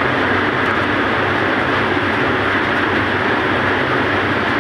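Tugboat's diesel engine running steadily, a low hum under a constant rushing noise.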